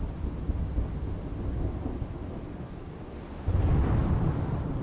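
Steady rain with low rolling thunder; a louder rumble of thunder comes in suddenly about three and a half seconds in.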